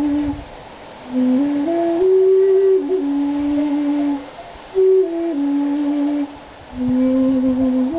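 Hand-crafted end-blown bamboo flute in G playing a slow, low melody of held notes that step up and down in pitch, in three short phrases separated by brief pauses.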